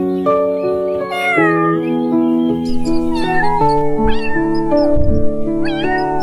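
Cats yowling in a fight: three short calls that bend in pitch, over a music track of held notes with low thumps in the second half.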